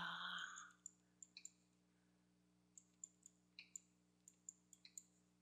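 Faint, irregular clicking of a computer mouse, about a dozen clicks, while painting in the 3D program.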